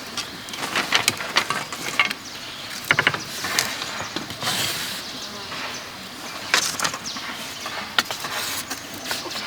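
Irregular clicks and knocks of bamboo being worked by hand, with a quick rattle of several close together about three seconds in and sharper single knocks later.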